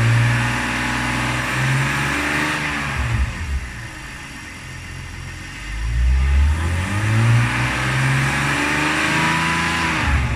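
BMW M54 inline-six engine revved twice: it is run up and held for about three seconds, drops back toward idle, then is revved and held again from about six seconds in until it falls off at the end.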